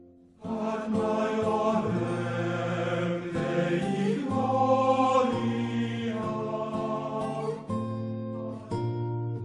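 Background music, with acoustic guitar and a sung, chant-like vocal line; it comes in after a brief pause.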